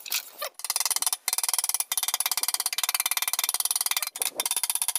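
Fast, even run of light taps from a plastic-headed hammer on a scooter's steel body panel, struck from the back to push a dent out. The tapping starts about half a second in and pauses briefly a few times.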